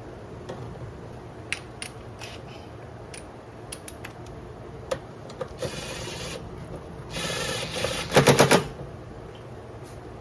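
Light metallic clinks of hand tools, then two short bursts of a power tool in a car-repair job; the second burst is the loudest and ends in rapid pulsing, like an impact wrench.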